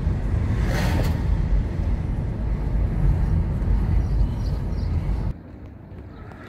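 Car driving along a town street, heard from inside the cabin: a steady low rumble of engine and tyre noise, with one short louder noise about a second in. About five seconds in it cuts off abruptly to much quieter outdoor ambience.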